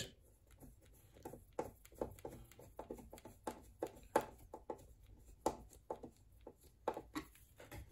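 Faint, irregular light clicks and taps of hands handling the wiring and plastic housing of an opened Brother sewing machine during reassembly.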